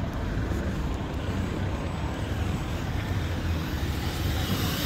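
Steady low rumble of road traffic heard from a moving vehicle: engine and tyre noise.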